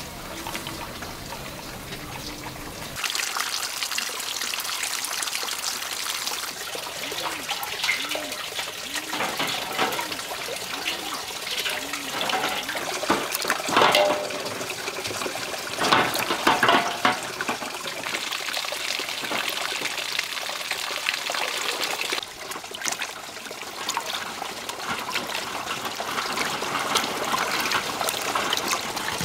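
Water splashing and trickling in a basin as duck eggs are washed and scrubbed by hand, with a few louder clatters about halfway through.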